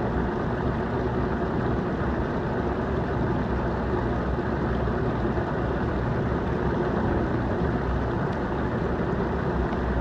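Hot tub jets running: a steady churning rush of water.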